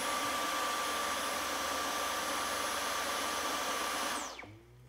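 Dyson cordless stick vacuum switched on, running steadily: a rush of air with a high whine on top. After about four seconds it is switched off, and the motor's whine falls away as it spins down.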